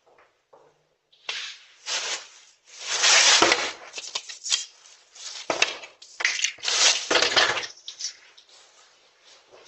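Rustling and crackling of a plastic shopping bag and a tinsel garland with ornaments being handled right beside a Ring doorbell camera's microphone. It comes in a run of loud noisy bursts lasting several seconds and dies away near the end.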